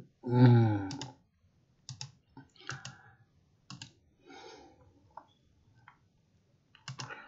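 Scattered sharp clicks from working a computer, about half a dozen over several seconds, as the presentation slide is advanced. They follow a short, low voice sound about half a second in, which is the loudest thing here.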